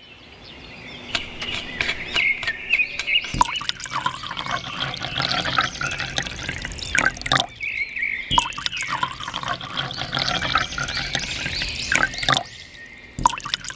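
Water pouring and splashing in irregular spurts, with many small splashes and drips. It breaks off briefly about eight seconds in and again near the end.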